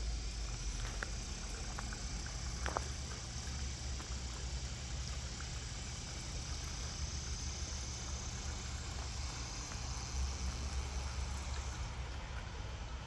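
A steady, high-pitched summer evening insect chorus that fades near the end, over a low, steady rumble.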